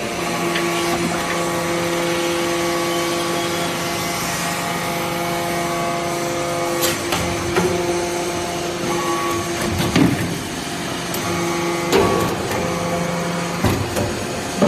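Hydraulic scrap-metal briquetting press running: a steady hum from its motor and pump, with several knocks in the second half.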